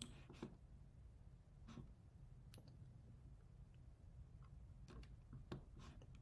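Near silence broken by about half a dozen faint, isolated computer mouse clicks.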